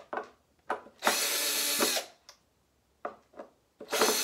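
Cordless drill-driver running in two bursts of about a second each, backing the screws out of a cabinet door hinge, with short clicks between the bursts.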